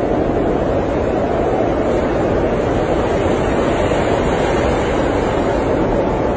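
Blizzard wind blowing steadily: an even, unbroken rushing noise with no gusts or breaks.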